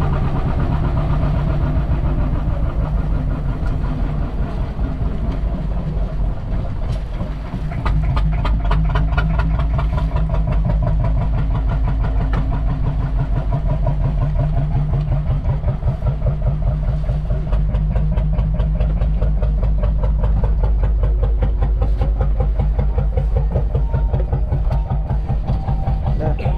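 Fishing boat's inboard engine running under way, a fast, even pulsing with a deep low rumble, growing louder about eight seconds in.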